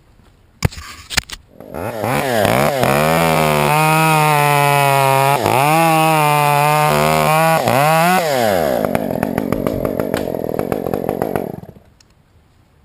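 Chainsaw engine starting up after a couple of sharp clicks and revving to a high steady whine, dipping once and climbing back. It drops back to a ticking idle and shuts off near the end.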